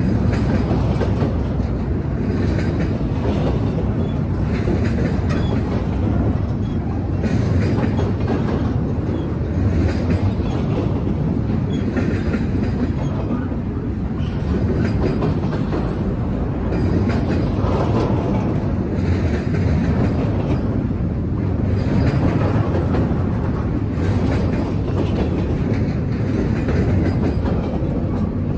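A freight train rolling past at trackside: a steady heavy noise of cars and wheels on the rails, with repeated clicks as the wheels cross rail joints.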